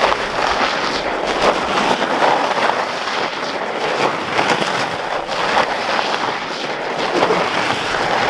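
Wide studded fat-bike tyres rolling over packed snow: a steady crunching, crackling noise.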